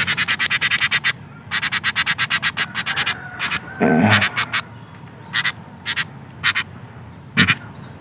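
A sooty-headed bulbul making rapid harsh bursts of sound, about a dozen a second, in two runs as it is grabbed by hand, then a few single bursts: the agitation of a wild bird still being tamed. A short low human voice sounds briefly midway.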